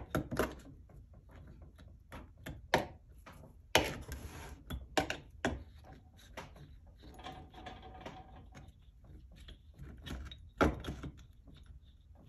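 Metal pliers clicking and tapping against small nails and taut twine on a wooden board as the twine is pushed down, a scatter of sharp irregular clicks. Between them, short stretches of a hand rubbing over the twine and wood.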